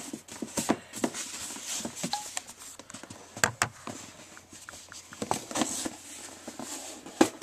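Scattered clicks, knocks and rubbing of a box and the camera being handled on a desk, with a sharp knock about three and a half seconds in and another near the end.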